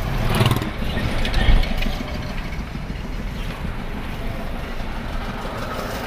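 Road traffic and vehicle engine rumble, with a louder low thump about a second and a half in.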